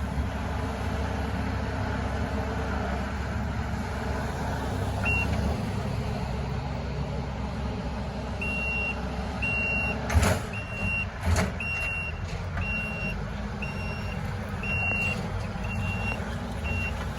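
Heavy machine's engine running steadily while its backup alarm beeps about once a second, starting around the middle. Two sharp knocks are heard a little over a second apart.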